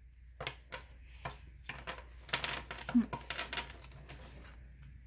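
Trading cards being handled and set down on a table: a run of irregular light taps and clicks.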